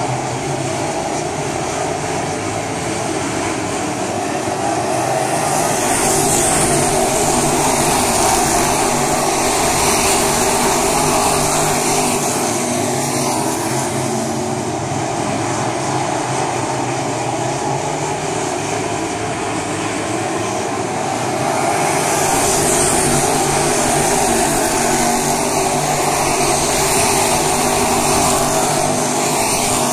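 A pack of crate-engine dirt-track race cars running laps at speed, a continuous engine din. It grows louder twice, about six seconds in and again about twenty-two seconds in, as the field comes past, then eases as the cars go down the far side.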